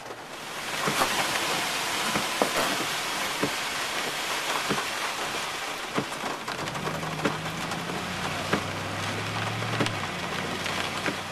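Heavy rain on a car's roof and windshield: a dense steady hiss with sharp taps every second or so. A low steady hum, most likely the car's engine, comes in about seven seconds in.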